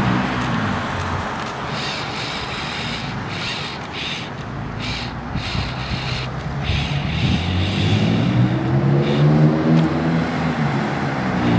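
2006 BMW M3's inline-six through a straight-piped Magnaflow exhaust, heard as the car drives away and fades into the distance, then comes back with the engine note rising and growing louder toward the end.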